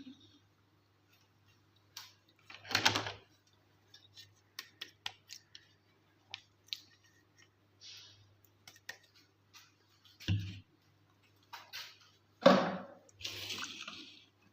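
Toys and their plastic packaging handled by hand on a hard surface: scattered light clicks and taps, with louder knocks and crinkling about 3 s, 10 s and 12 s in, and a short hissing rustle near the end.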